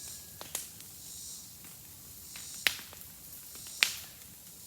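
Newly lit brush pile burning, with a few sharp pops and cracks from the wood, the two loudest close together about midway and a second later, over a faint hiss.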